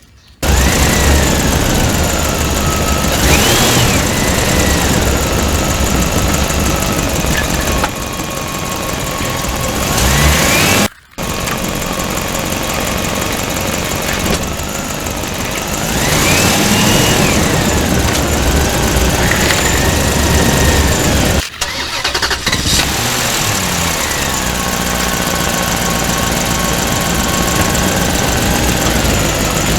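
Engine sounds of toy construction vehicles: a steady running drone with repeated revs that rise and fall in pitch. It breaks off abruptly twice, like cuts between clips.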